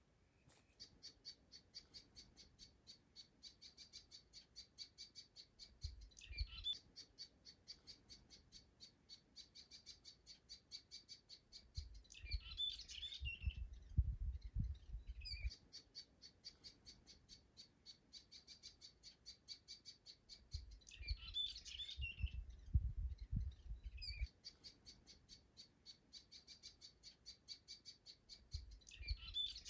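Faint bird chirping in the bush: a fast, even high trill goes on most of the time. Every few seconds it breaks off for a short burst of scattered chirps, with low rumbles underneath.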